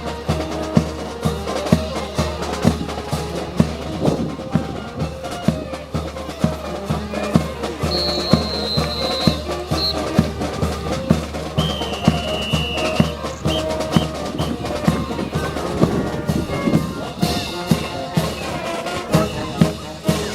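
Brass band playing a march, with sustained wind notes over a steady bass-drum beat of about two strokes a second.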